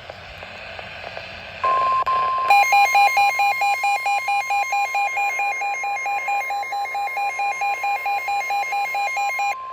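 Weather-radio static hiss, then after about a second and a half the steady 1050 Hz NOAA Weather Radio alert tone, signalling a severe thunderstorm warning. Over it, a weather radio's alarm beeps rapidly, about four beeps a second, and stops shortly before the end while the steady tone carries on.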